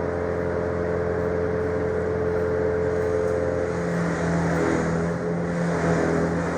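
A motor running steadily, its tone shifting slightly about four seconds in.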